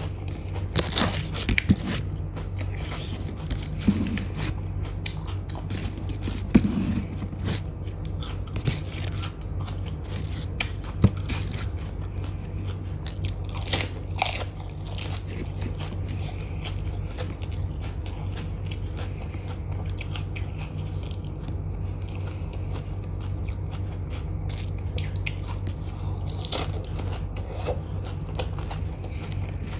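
Close-miked eating of panipuri: chewing, with sharp crunches as the crisp hollow puri shells are bitten and broken, the loudest bite about halfway through. A steady low hum runs underneath.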